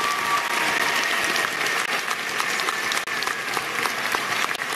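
Crowd applauding with dense, steady clapping.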